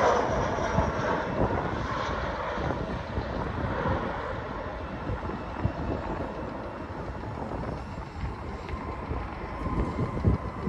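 Airliner on landing approach, its engine noise fading steadily as it passes by, with wind gusting on the microphone and picking up near the end.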